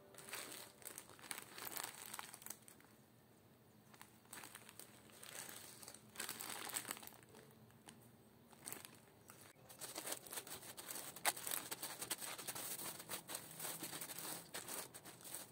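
Clear plastic bags of dried herbs crinkling as they are handled and moved about, in uneven spells with a lull about three seconds in.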